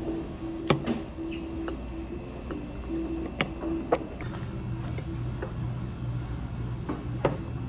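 A metal fork clinking against a ceramic plate with a few sharp clicks while spearing food, over a low steady hum of room noise.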